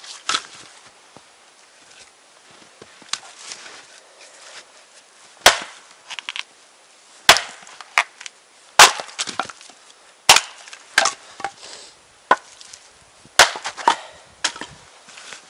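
Axe splitting firewood on a chopping block: about ten sharp chops with the crack of wood splitting, coming irregularly every one to two seconds.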